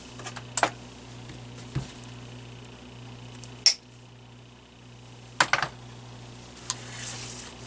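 Several sharp clicks and snips of wire cutters cutting through a small fan's wiring and the parts being handled, the loudest about halfway through, over a steady low hum.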